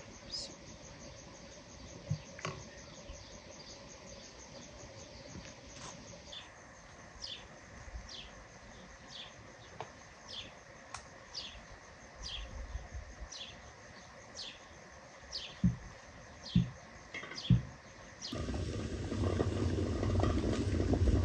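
Birds chirping outdoors, repeating a short falling note about twice a second, over a steady high insect trill at first. Three short knocks come about a second apart, then a louder steady rushing noise sets in near the end, water bubbling around glass jars in an aluminium pot.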